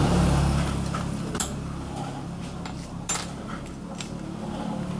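A few small metallic clicks and clinks, the sharpest about three seconds in, from small metal parts being handled at a workbench, over a low steady hum.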